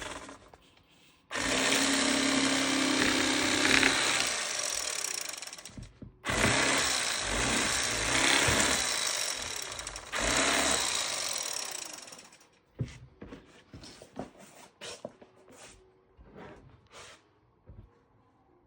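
Battery-powered electric fillet knife running in three long bursts, buzzing as it cuts through perch, then scattered short clicks and knocks.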